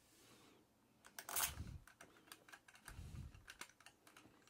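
Light clicking and clinking of a hand tool and small screws being handled at a scooter's rear hub motor, with a louder clink about a second and a half in and a soft knock near three seconds.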